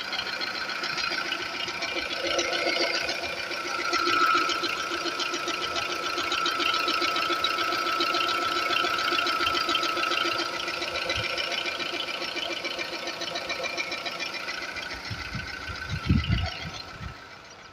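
2004 VW Polo 1.4 engine running with a fast, even ticking, the strange tick the owner is unsure is normal. A few low thumps sound near the end.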